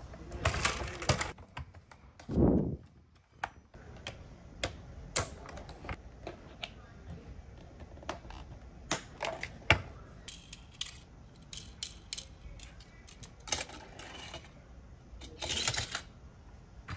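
Hard plastic toy parts clicking and clattering as a toy car-carrier truck's clear plastic case is opened and its ramps are folded out: irregular sharp clicks with a few short rustling bursts. A dull thump about two and a half seconds in is the loudest sound.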